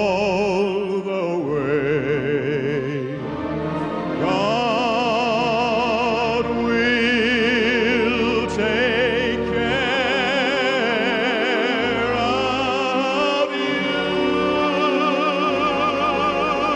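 Solo singing in an operatic style, long held notes with heavy vibrato, over a sustained instrumental accompaniment.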